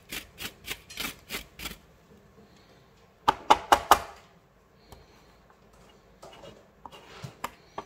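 Fresh ginger root rubbed up and down a stainless steel box grater in quick scraping strokes, about five a second, for nearly two seconds. About three seconds in come four sharp, ringing knocks, the loudest sounds here, as the metal grater is tapped down on the plastic cutting board, then a few faint scrapes near the end.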